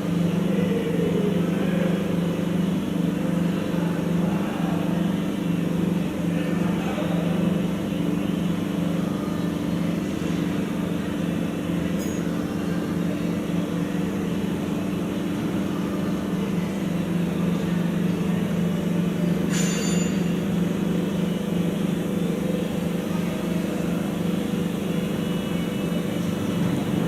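Train engine running steadily: a constant low hum, with a sharp click about twelve seconds in and another near twenty seconds.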